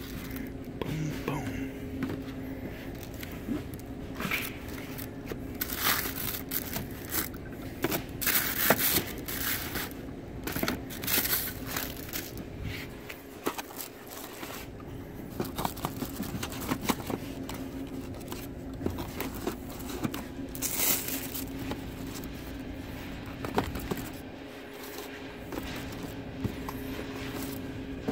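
Cardboard boxes of die-cast cars and a thin packing sheet being handled: irregular crinkling, rustling and scraping in bursts, over a steady low hum.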